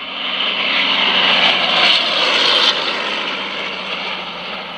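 Propeller airplane sound effect: a noisy engine drone that swells to its loudest about two seconds in, then fades away.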